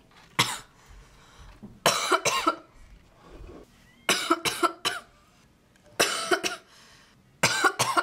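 A young woman coughing in about five short fits a second or two apart, most of them two to four coughs in quick succession. She is sick with a sore throat.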